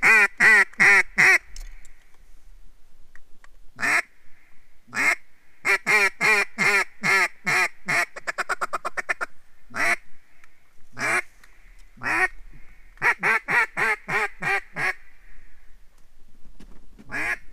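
Mallard hen duck call blown close by, sounding runs of loud quacks: a fast run of five at the start, further runs and single quacks, and a quick chatter of short notes about eight seconds in, the feed chuckle, all to bring circling mallards in to the decoys.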